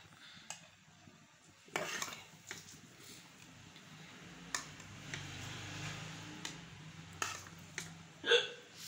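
Steel spoon clinking and scraping against a metal cooking pot as cooked rice is lifted and turned over. There are a few separate clinks, the loudest near the end, with a faint low hum underneath in the middle.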